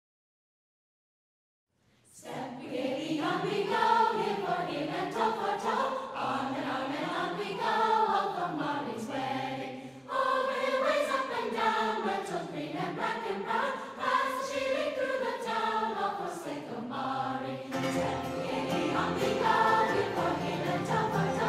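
About two seconds of silence, then background music begins: a choir singing a slow, swaying melody.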